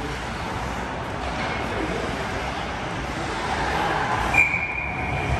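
Steady noise of a game in progress, then about four seconds in a sharp onset and one long, steady, high whistle blast, typical of a referee blowing play dead.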